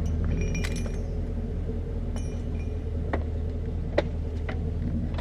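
A motor vehicle engine running at a steady idle, with a few light metallic clinks over it, the sharpest about four seconds in.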